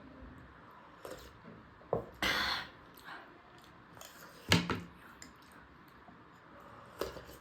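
A few clinks and knocks of cutlery against a dish, the loudest about four and a half seconds in, with a short scraping burst just after two seconds.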